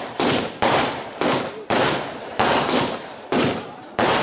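Fireworks bursting in quick succession, about two bangs a second, each bang trailing off in a fading echo.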